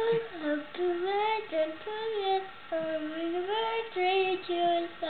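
A high voice singing a slow, wordless tune, with long held notes and slides between them, in short phrases separated by brief pauses.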